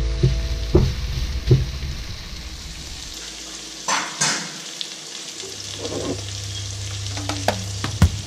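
Sliced onion, carrot and bell pepper sizzling in a hot frying pan while being stirred, with a few sharp clicks against the pan, two close together about four seconds in. The sizzle is strongest at first and then settles lower.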